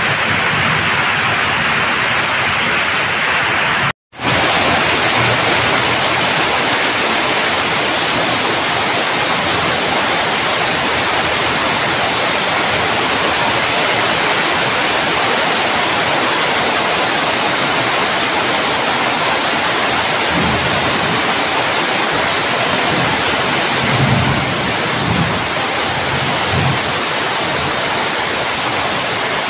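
Heavy rain pouring steadily and drumming on a corrugated metal roof, a dense even hiss with a momentary break about four seconds in. A few low rumbles swell under the rain near the end.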